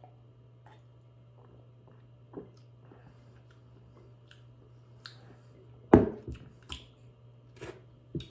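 Mouth sounds of someone tasting a sip of light lager: scattered wet lip smacks and tongue clicks, with a louder smack about six seconds in and a few more near the end.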